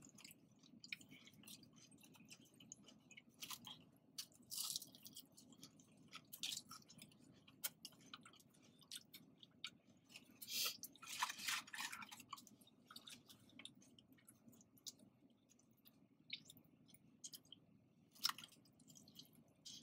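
Quiet chewing and crunching of food, with scattered sharp mouth clicks and a few louder crunchy bites, the loudest a little past the middle.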